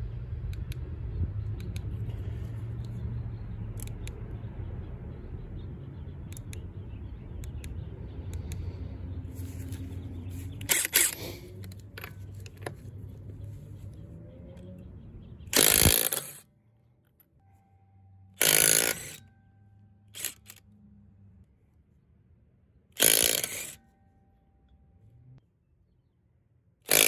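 Cordless DeWalt DCF923 Atomic 3/8-inch compact impact wrench hammering car lug nuts loose in about five short bursts, each under a second, in the second half, each nut torqued to roughly 110 ft-lbs. Before the bursts there is a steady low rumble.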